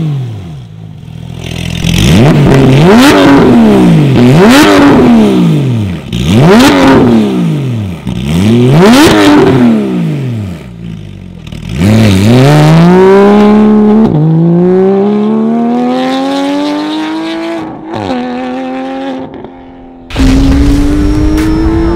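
Porsche 991.1 GT3's 3.8-litre flat-six through a titanium valved cat-back exhaust with the valves open, blipped up and back down about five times. From about twelve seconds in it accelerates hard, the pitch rising and dropping back at each gearchange, and near the end a steady rising pull.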